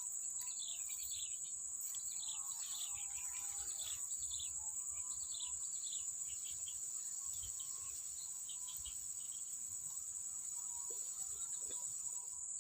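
Swamp-side insects keep up a steady high-pitched drone, while birds give many short, quick falling chirps, busiest in the first half and thinning out towards the end.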